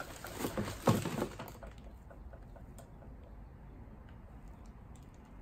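Crinkling and rustling of plastic bags and packing as items are rummaged out of a cardboard box, with a sharp knock about a second in; after about a second and a half it dies down to faint room noise with a few small ticks.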